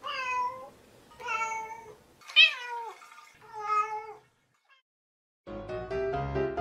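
A domestic cat meowing four times in a row, each meow under a second long; the third is the loudest and slides down in pitch at its end. Piano music begins near the end.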